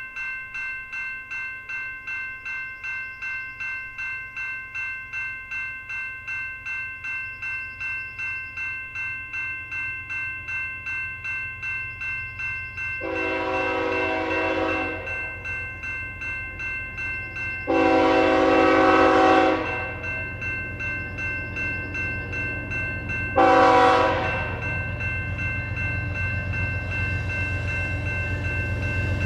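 Grade-crossing bell ringing steadily at about two and a half strikes a second while a Canadian Pacific diesel freight approaches. The locomotive's air horn sounds two long blasts and a short one over the low rumble of the train, which grows louder near the end.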